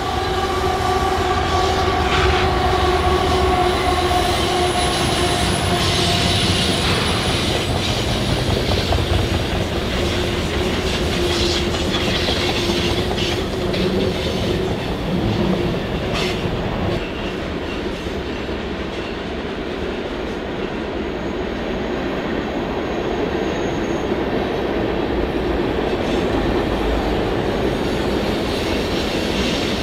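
Canadian Pacific diesel freight locomotives passing close by, with a pitched whine that slowly falls and fades over the first several seconds. Then the freight cars roll past with a steady rumble, wheels clicking over the rail joints and a faint high squeal of wheel flanges on the curve.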